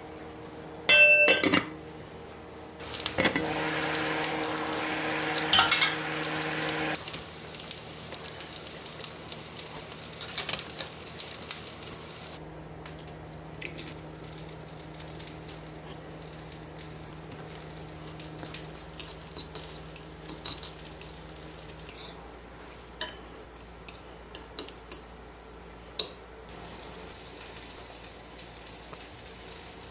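A metal lid clanks onto a pot, ringing briefly, followed by a few seconds of loud hissing from the steaming pot. After that come light clinks and scrapes of utensils in glass bowls as seasonings are mixed.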